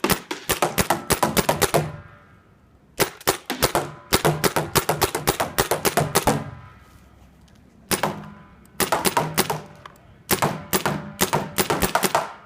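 Paintball gun firing rapidly, about six shots a second, in several strings separated by short pauses.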